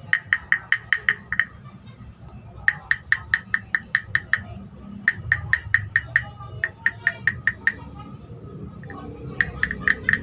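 Wooden frog guiro: a stick scraped along the carved ridges of a wooden frog's back, giving a croaking rattle of rapid clicks, about seven a second. It comes in four runs with short pauses between.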